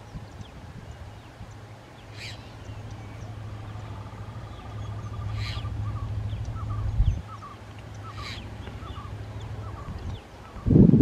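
Diesel locomotive engine humming low and steady as a freight train approaches, with birds calling over it: a short call repeated about every three seconds, plus a trill and chirps. A brief loud low thump near the end.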